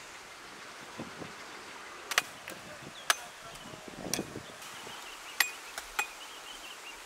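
Machete blade chopping into the husk of a green coconut held in the hand, cutting it open: about six sharp chops, roughly one a second, over a light outdoor rustle.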